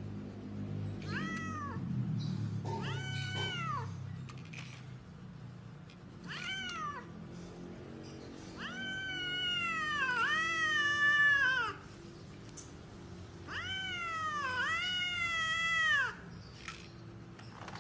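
Domestic cat meowing repeatedly: a series of drawn-out calls, each rising then falling in pitch, several in back-to-back pairs, with the longest in the middle and near the end. Background music plays underneath.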